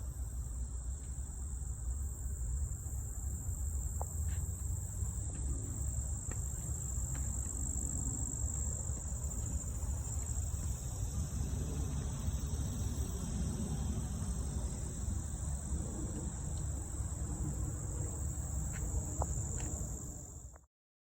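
Steady, unbroken high-pitched chorus of insects, with a low rumble underneath and a few faint short chirps. It all cuts off suddenly near the end.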